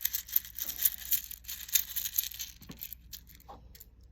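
Handling of a packet of small plastic charms: crinkling packaging and small hard pieces clicking against each other. The sound is dense crackling for about two and a half seconds, then a few scattered clicks.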